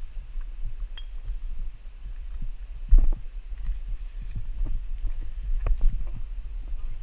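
Low rumbling handling noise from a hand-held camera, with irregular knocks and thumps from steps over rock. The loudest thump comes about three seconds in.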